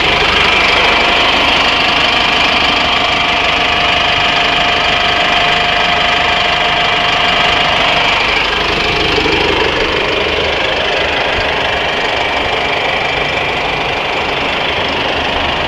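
Inline-four turbo diesel engine of a 2021 GAZelle NN truck idling steadily. Around the middle a tone slides down in pitch.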